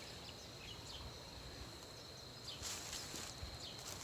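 Faint outdoor ambience: a steady high insect drone, short bird chirps here and there, and a brief rustle about two-thirds of the way in.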